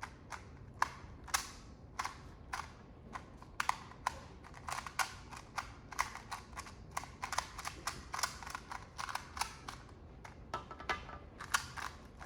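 A 2x2 Rubik's cube being turned fast in a speed solve. Its plastic layers make quick, irregular clicks and clacks, several a second.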